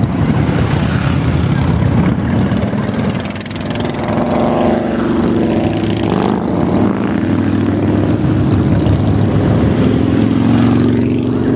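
A continuous stream of motorcycles, mostly Harley-Davidson V-twins, riding past close by, their engines running loud and steady as one bike after another goes by, with the pitch drifting as each passes.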